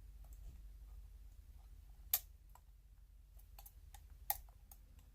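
Faint metallic ticks and clicks of lever picks working inside a four-lever padlock as the levers are felt and lifted, with two sharper clicks about two seconds in and again past four seconds. A low steady hum lies underneath.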